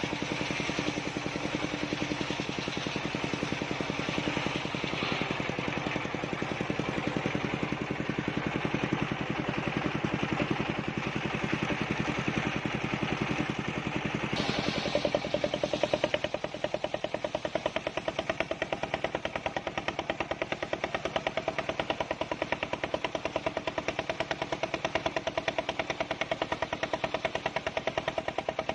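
Circular sawmill running on a big log, its motor giving a fast, even chugging throughout. About halfway through the sound changes: the high hiss falls away and a steady mid-pitched tone takes over.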